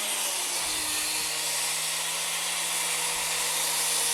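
An electric motor running steadily with a strong airy hiss and a low hum that settles a little lower in pitch near the start.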